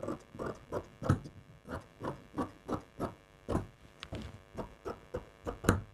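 Tailor's shears snipping through layered fabric in a steady run of cuts, about three a second, while cutting out a kurti sleeve along its chalk line.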